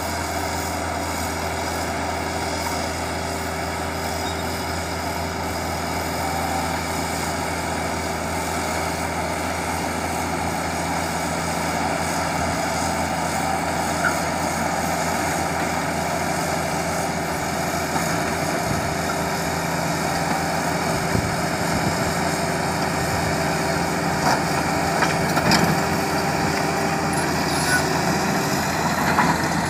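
Komatsu D85E-SS bulldozer's diesel engine running steadily under load as it pushes dirt, with a few short knocks in the second half.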